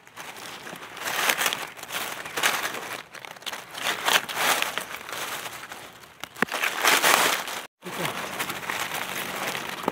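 Dry leaf litter rustling and crackling in repeated bursts as hands push through it to pick mushrooms. The sound cuts out completely for a moment about three-quarters of the way through.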